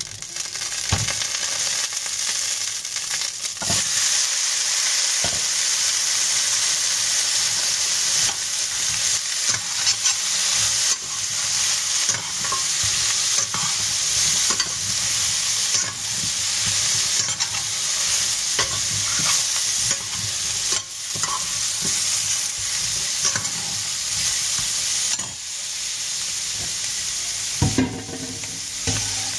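Food frying in hot oil in a stainless steel pan: a loud, dense sizzle that starts at once. A metal spatula stirs it, scraping and clicking against the pan.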